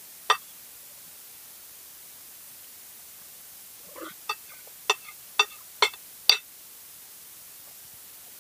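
Spoon and fork clinking against a plate while eating: one sharp clink just after the start, then a run of five or six sharp clinks about half a second apart in the middle, over a steady faint hiss.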